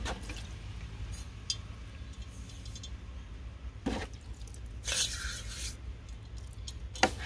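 Handling of metal tractor parts: a knock about four seconds in, a short hissing scrape just after, and a sharp click near the end, over a steady low rumble.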